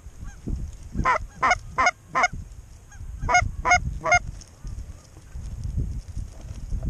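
Goose honks: two quick runs of short, sharp calls, four and then three, over a low rumble of wind on the microphone.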